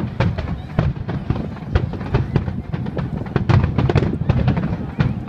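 Aerial fireworks going off in a dense barrage: many sharp bangs and crackles in quick, irregular succession over a continuous low booming.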